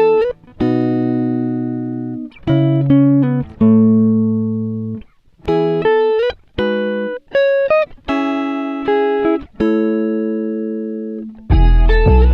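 Background music: a series of struck chords, each left to ring and fade, with short gaps between them. Near the end a fuller arrangement with a deep bass comes in.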